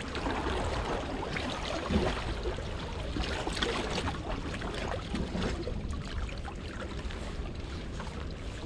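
Steady rain and water noise with many small scattered patters and ticks over a low rumble.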